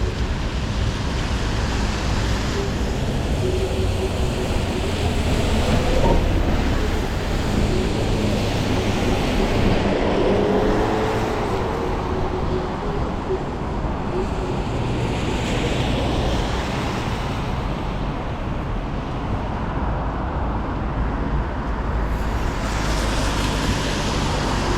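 City traffic on a rain-wet road: a steady hiss of tyres on wet asphalt with vehicles passing, and wind on the microphone.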